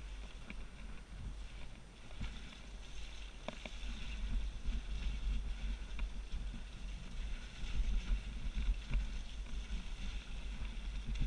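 Downhill mountain bike riding over snow, heard from a helmet camera: a steady low wind rumble with the bike rattling over the bumps, and a couple of sharp knocks about three and a half and six seconds in.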